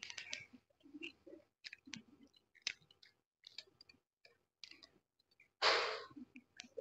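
Close-up eating sounds of roast chicken being chewed: scattered wet clicks and soft chewing noises, with one short, loud rush of noise near the end as a sauce-dipped piece is bitten.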